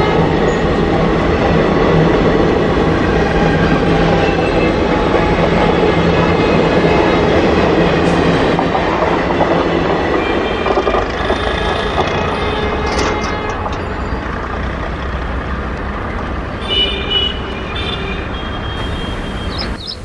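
Passenger coaches rushing past at speed: the steady rumble and clatter of wheels on the rails, fading over the second half as the train moves away.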